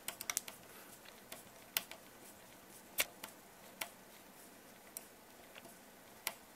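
Faint, irregular sharp clicks of small plastic and metal RC suspension parts being handled as the shock absorber's mounting is nipped up by hand. There are about half a dozen distinct clicks, unevenly spaced.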